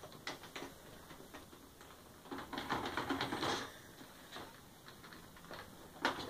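Faint scattered clicks and rattles of plastic toy fire-station pieces being handled, thickening into a short run of clicking and rustling about halfway through, with a sharper click near the end.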